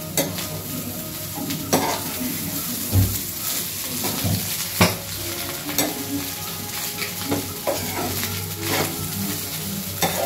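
Garlic egg fried rice sizzling in a frying pan as a steel ladle stirs and turns it. Scrapes and knocks of the ladle against the pan come every second or two over the steady sizzle.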